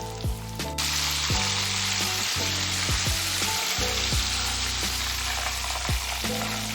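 Battered chicken pieces deep-frying in oil at 170 °C, a steady dense sizzle that gets louder about a second in.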